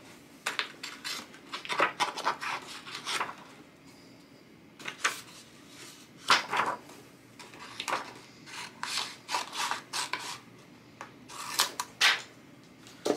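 Decoupage paper rustling and rubbing as it is pressed and smoothed onto a wooden cut-out, with scissors snipping through the paper partway through: irregular short scrapes and crinkles.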